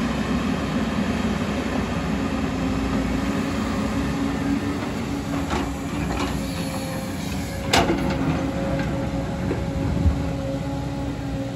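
JCB tracked excavator running with a steady engine hum as it swings and digs in a rocky trench. A few sharp clanks, the loudest just under eight seconds in, come from the bucket striking rock.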